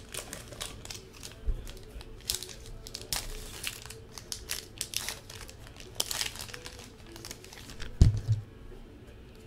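Trading-card pack wrapper crinkling and tearing as a pack of 2014 Bowman Sterling football cards is ripped open, a quick run of sharp crackles over the first six seconds or so. A dull thump about eight seconds in as the stack of cards is handled.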